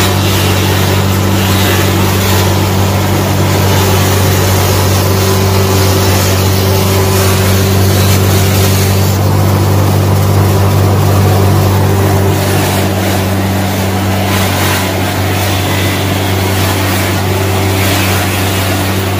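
Small DC toy motor running steadily, spinning the flywheel of a homemade model chaff cutter with a continuous buzzing hum.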